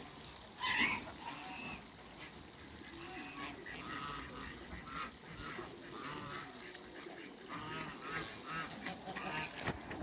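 Farmyard ducks and geese calling. One loud call comes just under a second in, then a run of short, repeated calls follows from about three seconds on.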